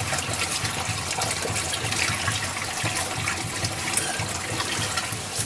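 Water rushing steadily, as of a river or stream.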